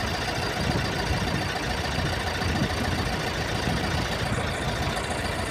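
An engine idling steadily, with a fast, even beat.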